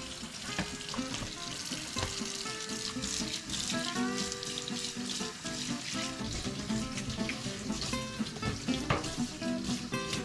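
Kitchen tap running water into a steel sink basin, the water splashing across the steel as the scrubbed-in baking soda and vinegar are rinsed off. Background music plays over it.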